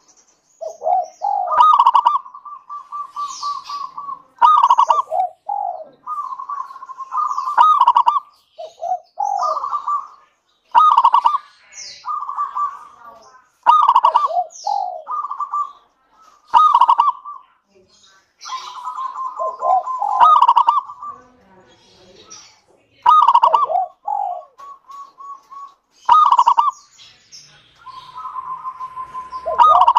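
Local zebra dove (perkutut) singing: repeated cooing phrases of quick rolling notes, a new phrase every two to three seconds, with short higher notes between.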